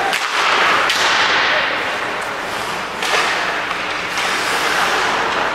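Ice hockey game in play: a steady hiss of skates on ice and arena noise, with a few sharp knocks of sticks and puck.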